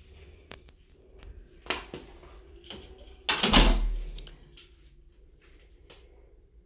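Scattered clicks and knocks in a small tiled room, with one loud thump and low rumble about three and a half seconds in.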